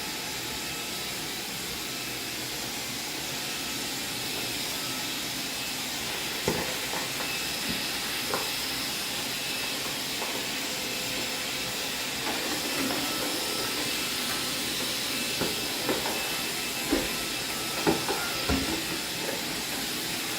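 Steady hiss, with light clicks and knocks scattered through the second half, several of them louder than the hiss.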